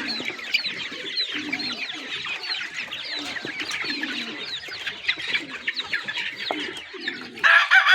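A flock of desi chickens: many chicks peeping in quick, high chirps over the low clucking of hens. A louder, drawn-out call breaks in near the end.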